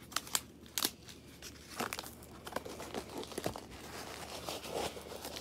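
Plastic packaging and bubble wrap crinkling and crackling as a parcel is unwrapped by hand, with sharp clicks scattered throughout.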